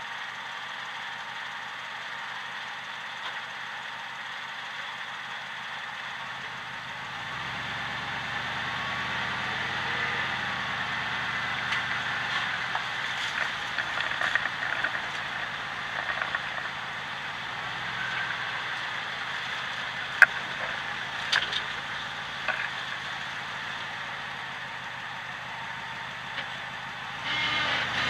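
Lifted 4x4 truck driving, heard from beneath the vehicle: steady engine hum with road and tyre noise, swelling about a quarter of the way in. A few sharp clicks and knocks stand out near the middle.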